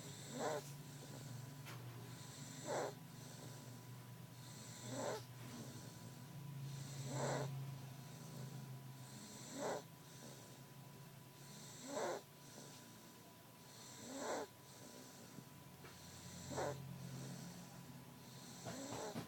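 Snoring in a slow, even rhythm, one breath about every two and a half seconds, each with a short loud peak.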